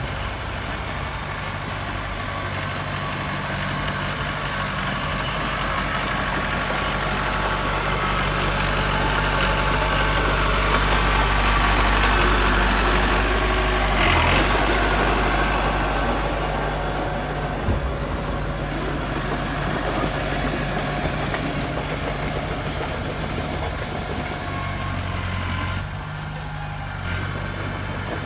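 Diesel engine of heavy earthmoving machinery running steadily, growing louder toward the middle and easing off again.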